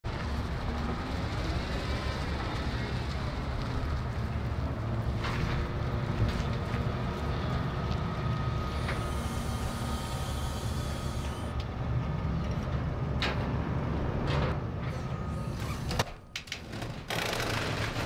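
Wheel loader's diesel engine running steadily, with a few sharp knocks along the way. The sound drops away briefly near the end.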